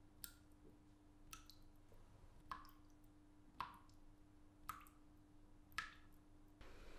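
A bath tap dripping: six single drops, one about every second, each a sharp tick with a brief falling tone, over a faint steady hum.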